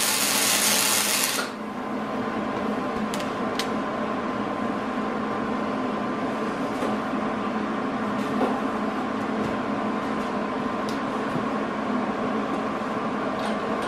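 Arc welder crackling and hissing as a short tack weld is laid on a steel go-kart frame plate, cutting off about a second and a half in. A steady machine hum with a few light clicks follows.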